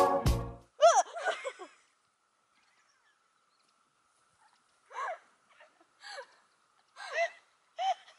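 Organ music cuts off in the first half-second. After it come a few faint, short pitched calls, one about a second in and four more near the end, each under half a second, over a faint steady whine.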